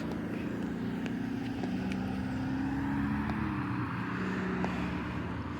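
A motor vehicle going past: a low engine hum that builds toward the middle and fades away near the end.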